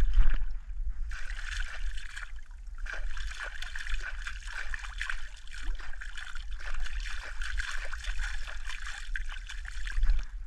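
Water splashing and trickling at the surface, a continuous run of small splashes starting about a second in, as a hooked mangrove snapper is drawn in and stirs the water.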